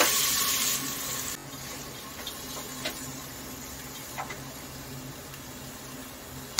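Chopped papdi (flat beans) hitting hot oil in a pressure cooker and sizzling loudly. The sizzle cuts off suddenly about a second and a half in, leaving a faint hiss with a few soft taps as more pieces drop in.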